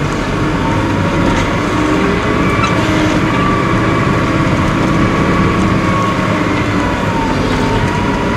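Caterpillar IT28 wheel loader's diesel engine running steadily as the machine drives through snow, heard from inside the cab. A steady whine sits over the engine rumble and rises and falls a little in pitch.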